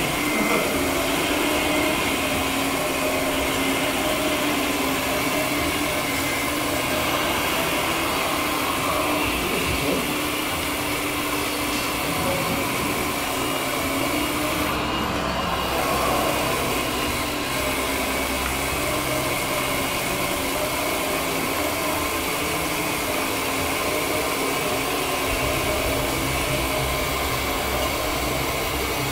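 Steady mechanical whine and hum of a radio-controlled Liebherr R934 model excavator's hydraulics and motors running as it grades and loads soil.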